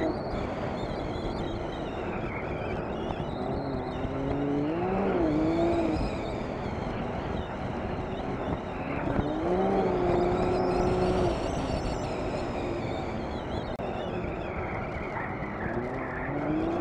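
Side-by-side UTV engine running under a constant rush of wind and terrain noise. Its pitch climbs and holds three times as the throttle is opened.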